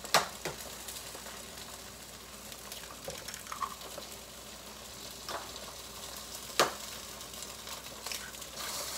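Eggs frying in a pan, a steady sizzle, with a few sharp knocks over it, the loudest just after the start and about six and a half seconds in.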